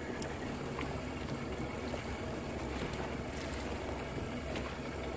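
A fishing boat's motor running steadily under way, with wind and water noise over it.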